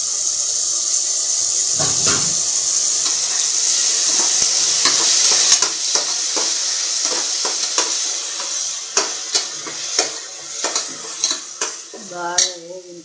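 Onions and tomatoes sizzling as they fry in oil in an aluminium pressure cooker, stirred with a steel ladle that scrapes and knocks against the pot about twice a second. The sizzle dies down over the second half as the knocks of the ladle stand out.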